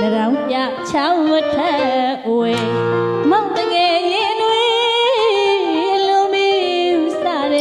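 A woman singing a Burmese song with keyboard accompaniment. Her melody bends and wavers with quick ornaments, and a low held chord sounds for about a second starting two and a half seconds in.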